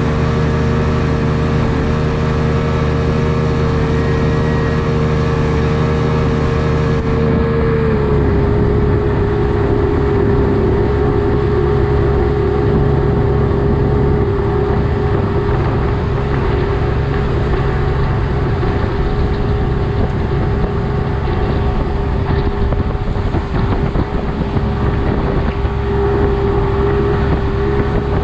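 1999 Evinrude FICHT 150 two-stroke outboard running steadily with the boat under way. Its pitch drops slightly about eight seconds in and then holds.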